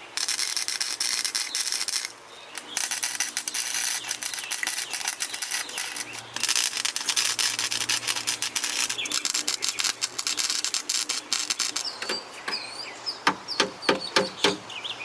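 Wire-feed welder crackling and spattering as bead is laid on the rusted hatch-seal panel of a Mk3 Supra, with a short break about two seconds in. The crackle stops near the end, leaving scattered clicks and birds chirping.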